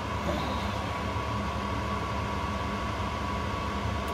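Battery chargers running on charge: a steady electrical hum with an even fan-like hiss and a thin, steady high tone.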